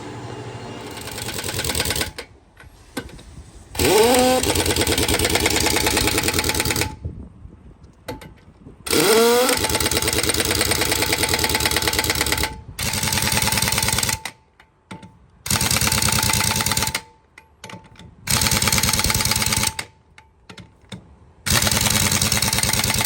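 Pneumatic impact wrench hammering in repeated bursts of a few seconds each, winding up with a rising whine at the start of two of them, working the lug nuts on a truck wheel.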